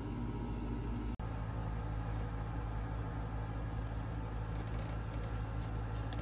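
Steady low hum of a running machine, with a brief dropout a little over a second in.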